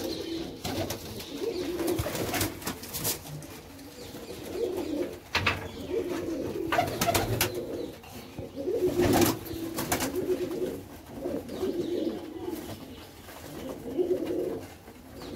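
Domestic pigeons cooing over and over in a small enclosed loft. Now and then there are sharp wing-flaps and scuffles as birds are handled and caught.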